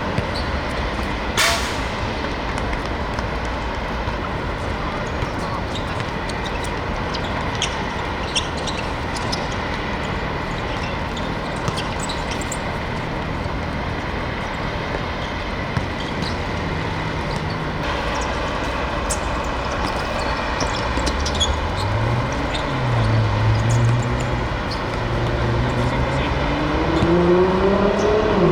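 Steady vehicle traffic noise, with one sharp knock about a second and a half in. In the last third an engine rises and falls in pitch as it revs.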